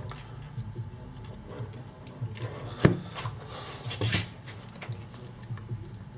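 Background hip-hop track with a steady low beat, over handling noise from working on a small plastic speaker: a sharp click about three seconds in and rubbing and scraping around four seconds in.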